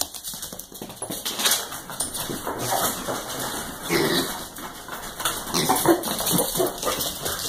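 A miniature schnauzer and a piglet scampering over a hardwood floor, with many quick clatters of claws and small hooves, mixed with a few short animal calls around the middle and later on.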